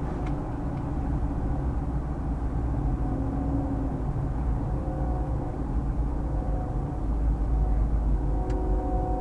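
Steady road and engine noise from inside a moving car, with a distant freight locomotive's air horn sounding faintly several times, growing stronger near the end.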